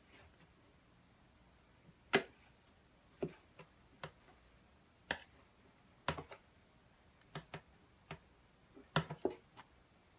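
A dozen or so sharp, irregular taps, the loudest about two seconds in and another cluster near the end.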